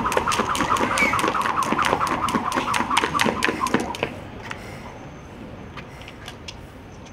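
Jump ropes slapping rapidly on concrete, several ropes at once, about five or six slaps a second, with a warbling sound alongside. About four seconds in the skipping stops, leaving a quieter city background with a few scattered light clicks.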